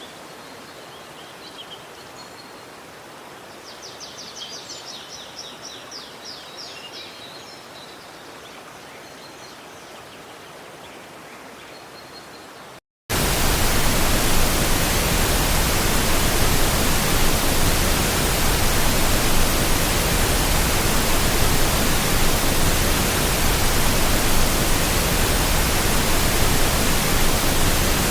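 Quiet forest ambience with birds calling, including a quick rapid trill. About halfway through, after a brief dropout, it gives way to a much louder, steady, even rushing noise.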